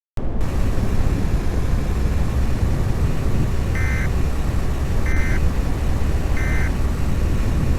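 Steady low rumble of road and engine noise inside a moving vehicle, with three short electronic beeps about a second and a quarter apart midway through.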